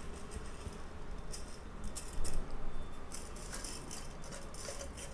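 Soaked, drained basmati rice being tipped into a pot of boiling water: spells of rattling and clattering from the grains and the vessel, loudest about two seconds in, over a steady low rumble.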